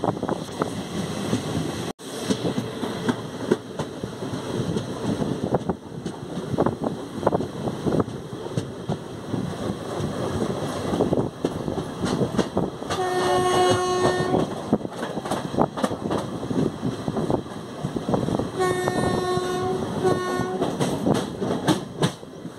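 Passenger train running at speed, heard from aboard: steady rattling wheel and carriage noise with frequent clicks of the wheels over rail joints. A train horn sounds for about a second a little past the middle, then again near the end in two short blasts.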